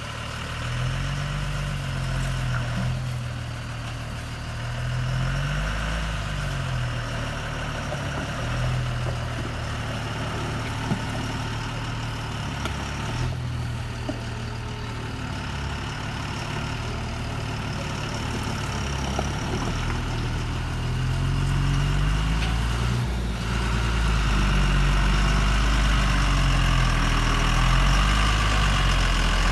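Tata 1618 4x4 tipper truck's diesel engine working through deep mud, its pitch rising and falling as the throttle is worked. It grows louder in the last third as the truck comes alongside.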